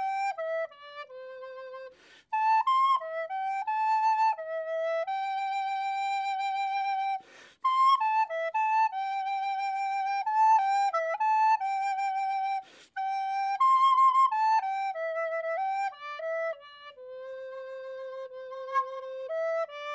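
Background music: a solo melody on a flute-like wind instrument, one held note at a time, with brief pauses between phrases.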